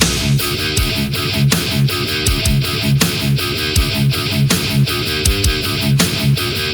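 Instrumental rock music: driving electric guitars and drums with a steady beat, no vocals.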